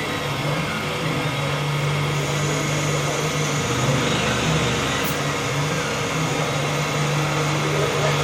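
CNC machine tool running steadily while machining: a constant low hum with thin, steady high whines over an even hiss.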